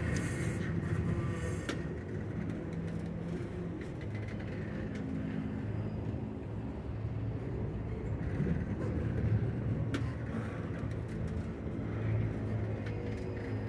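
An engine running steadily: a low hum whose pitch lines shift only slightly, with a few scattered clicks.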